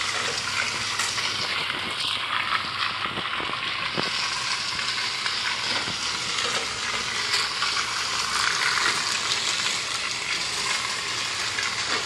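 Battery-powered plastic Thomas toy train running around plastic track: a steady, noisy rattle of its small motor, gears and wheels, with scattered small clicks.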